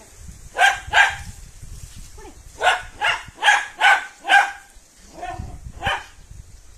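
A dog barking in short, sharp barks: two together about a second in, then a quick run of five at about two a second, then one or two more near the end.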